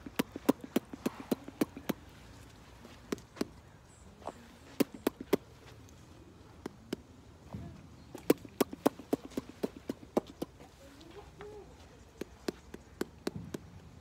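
Runs of sharp clicks, several a second with pauses between the runs: a woman clicking her tongue and a horse copying her with clicking noises of its own.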